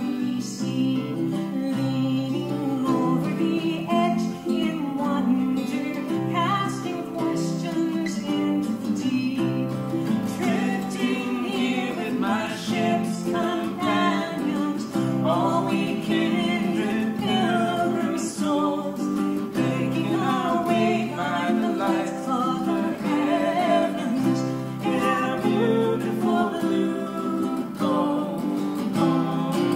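A folk song played on acoustic guitar and ukulele, with a woman singing the melody.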